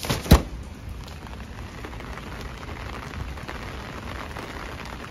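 Heavy rain falling steadily on pavement and puddles. Two sharp knocks come just after the start, the second one the loudest.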